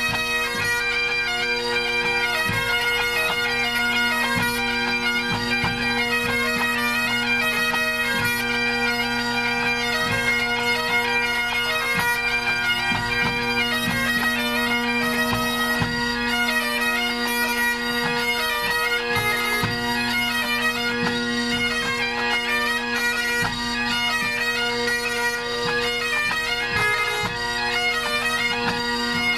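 Great Highland bagpipes of a pipe band tuning up: steady drones sound under shifting chanter notes.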